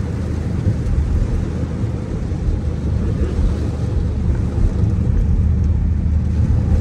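Dodge Hellcat's supercharged 6.2-litre V8 running steadily at low speed, heard from inside the cabin as a deep drone, under a steady hiss of rain and road noise.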